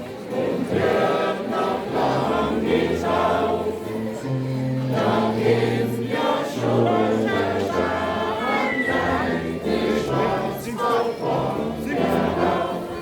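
Many voices singing a song together, with low bass notes held beneath that change pitch every second or so.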